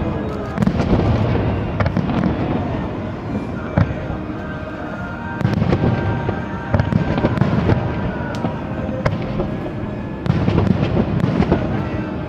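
Aerial fireworks: rapid volleys of booming shell bursts with crackle, coming in three heavier rounds with short, lighter lulls between them.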